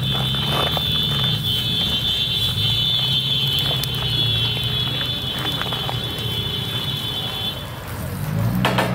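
Small electric motor turning a bicycle-wheel-driven roasting spit, giving a steady high whine over a low hum. The whine stops shortly before the end.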